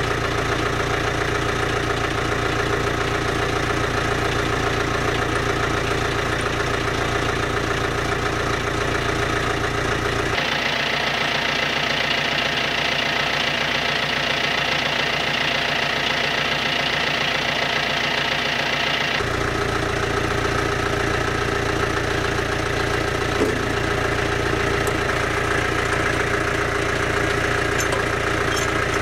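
Tractor engine idling steadily. For about nine seconds in the middle the low rumble drops away and the sound turns thinner, then the full low idle returns.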